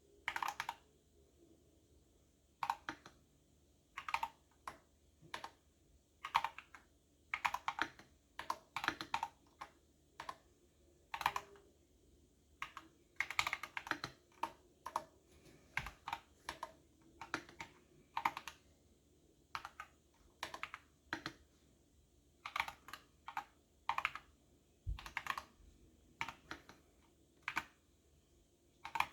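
Typing on a computer keyboard: irregular bursts of keystroke clicks, a few keys at a time, with short pauses between bursts.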